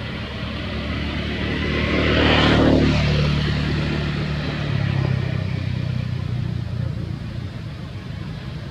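A motor vehicle passing by: a low engine hum swells to a peak between two and three seconds in, its higher noise sliding down in pitch as it passes. A second low swell follows about five seconds in, and then it fades.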